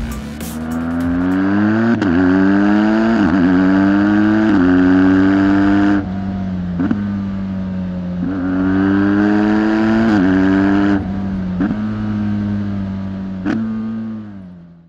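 BMW R1200 GS Rallye's boxer-twin engine pulling up through the gears, its pitch climbing and then dropping at each upshift. About six seconds in it eases off, then it pulls through the gears again before fading out at the end.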